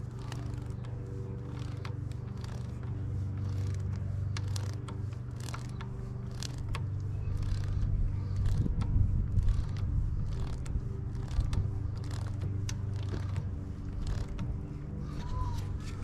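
Irregular metallic clicks and ratcheting from a wrench turning a square-taper crank bolt into a bike crank, over a steady low hum. The handling gets louder and rougher about halfway through.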